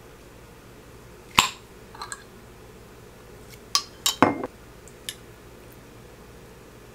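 Glass jam jar and metal spoon being handled: a few sharp separate clinks and knocks of glass and metal. The loudest comes about a second and a half in, then a quick cluster near the middle as the spoon goes into the jar.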